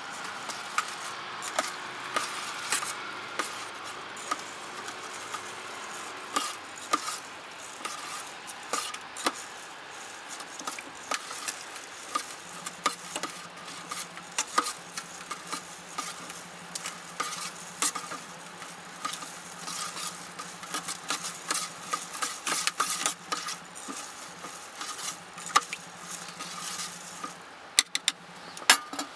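A metal spoon stirring rice in water in a stainless steel camping pot, rinsing the rice: repeated clinks and scrapes of the spoon against the pot, with the swish of grains and water.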